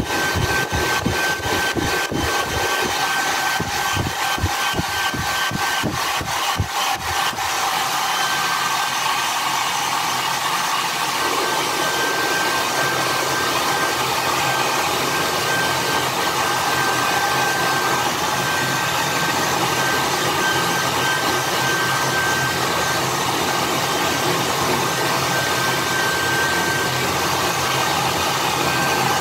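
Handheld hair dryer running steadily, with a thin high whine in its airflow noise, blowing a wet chicken's feathers dry. Irregular low thumps sound in the first seven seconds or so.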